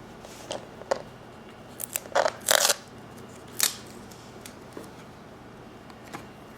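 A handful of short clicks and scrapes of a screw being driven into a stripped hole in the monitor's casing, the loudest a quick cluster about two seconds in.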